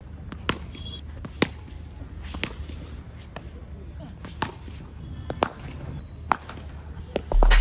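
Sharp knocks of tennis balls at cricket net practice, about one a second, from balls struck off the bat and bouncing on the concrete pitch and netting, over a low steady rumble. A loud deep bass sound starts just before the end.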